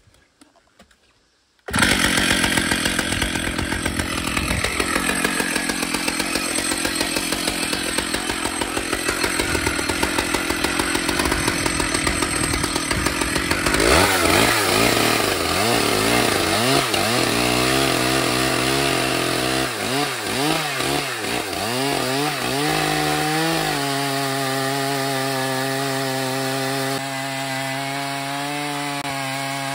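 Stihl MS 881 two-stroke chainsaw starts suddenly about two seconds in and runs at high revs. From about halfway it is ripping lengthwise through an oak log in a chainsaw mill: its pitch wavers up and down at first, then holds steady under load as it cuts.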